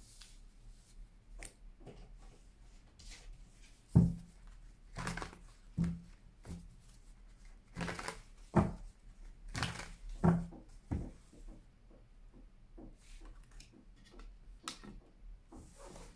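A deck of cards being handled and shuffled by hand on a table: soft rustling with a dozen or so irregular knocks, the loudest about four seconds in.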